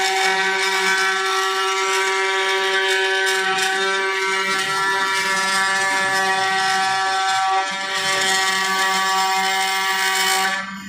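CNC router spindle running at a steady high speed, a constant whine with the hiss of the bit cutting wood; a brief drop in level near the end.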